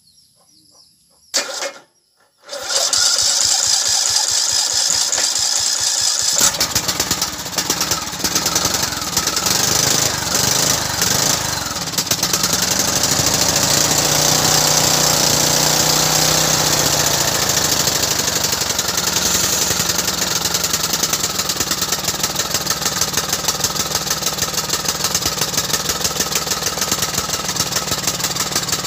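Husqvarna mower engine starting after a couple of clicks, about two and a half seconds in, then running steadily with a fast, rough pulse: the mower that would not turn over is now turning over and running.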